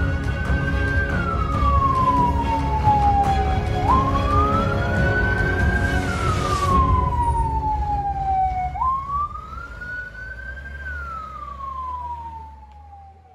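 Ambulance siren on a police van wailing in a slow cycle: each cycle jumps up, climbs and holds high, then slides slowly back down, about every five seconds, three times. It grows fainter near the end as the van moves off, over a steady low rumble.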